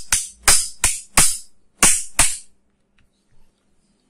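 Sharp metallic taps on the end of a 775 DC motor's shaft, about seven quick strikes over two seconds and then stopping, knocking the rotor out of the motor housing.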